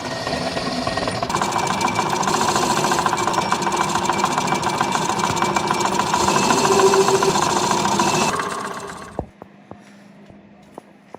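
A workshop machine running steadily with a fast rattle, winding down and stopping about nine seconds in, followed by a few sharp clicks.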